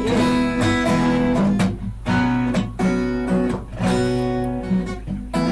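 Acoustic guitar being strummed in a steady rhythm, its chords ringing between the strokes.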